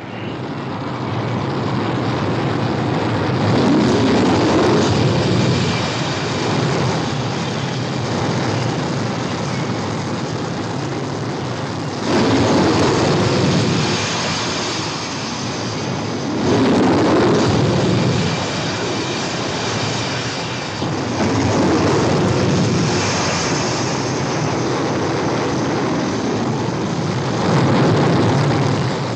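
Jet aircraft engines on a carrier flight deck: a loud continuous rush with a high whine, swelling about five times as jets come in over the deck.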